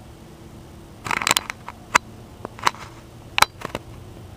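Irregular sharp clicks and taps: a quick rattling cluster about a second in, then several single clicks, over a faint steady hum.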